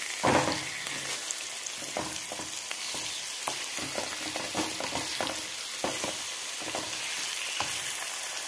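Marinated chicken pieces sizzling in hot oil in a kadai, with frequent short taps and scrapes of a wooden spatula stirring them.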